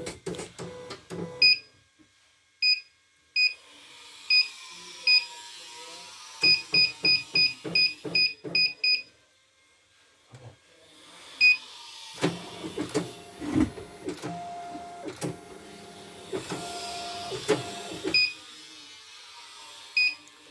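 CNY E900 computerised embroidery machine's control panel giving a short high beep at each key press, singly at first and then in a quick run of about nine near the middle, with faint taps. Between the presses the machine's motors whirr with a wavering pitch.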